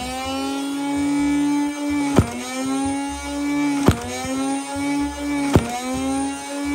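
The Nerf Elite Infinus's motorized flywheels spin up to a steady whine. Three darts are then fired about a second and a half apart, each a sharp crack with a brief dip in the motor pitch as the dart passes through the flywheels.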